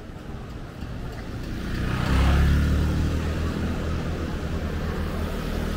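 A motor vehicle passing close by on a street: its engine and tyre noise swell to loudest about two seconds in, then keep up a steady low rumble.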